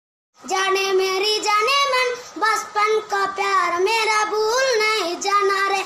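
A high singing voice carrying a melody, with held notes that waver and glide, over little or no accompaniment. It starts about half a second in, after a brief silence.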